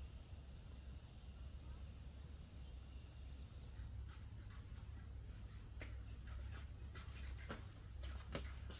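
Insects trilling in a steady high-pitched drone over a faint low rumble. From about four seconds in come scattered sharp snaps and crackles, several of them close together near the end.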